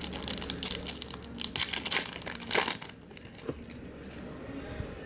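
Foil trading card pack wrapper crinkling and rustling as it is opened, busiest over the first three seconds, then quieter with a few light clicks as the cards are handled.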